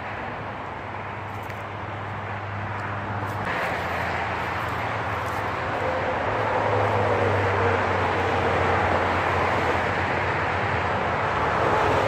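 Steady hum of motor-vehicle noise, growing louder a few seconds in and staying loud.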